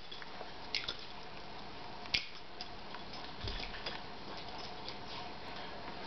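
Two small dogs scuffling in play on carpet: a few scattered soft taps and clicks over a steady low hiss, with no barking or growling.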